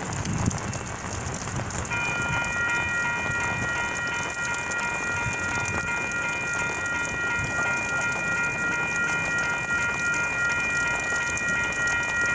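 Western-Cullen-Hayes Type 2 electronic railroad crossing bells start ringing about two seconds in and keep going, a steady multi-tone ding as the crossing signals activate for an approaching train. Rain hisses on wet pavement underneath.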